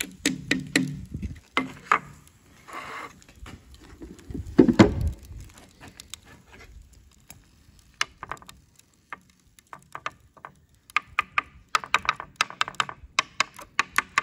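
Plastic ice cube tray handled on a metal bench, with a thud about five seconds in, then a metal rod tapping and scraping at the frozen oil, coolant and water in the tray's cells: a rapid run of sharp clicks and ticks through the second half.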